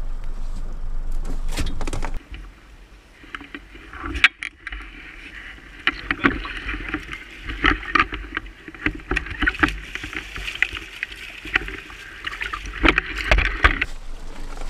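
Wind and water noise on a small fishing boat, with scattered sharp knocks and clicks. About two seconds in the louder rush drops away suddenly, leaving a quieter haze.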